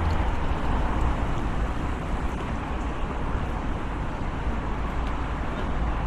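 City street ambience with a steady hiss of traffic noise and a continuous low rumble.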